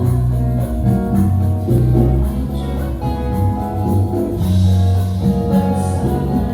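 Music: a song with a prominent electric upright bass playing long, low held notes that change about once a second, with higher instrumental parts above.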